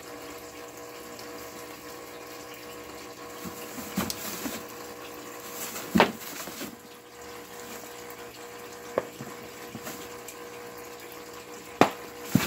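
A rabbit digging and shuffling in hay, shredded newspaper and a cardboard box, heard as a few short scratches and knocks, the sharpest about six seconds in and two more near the end. Under them runs a steady hum.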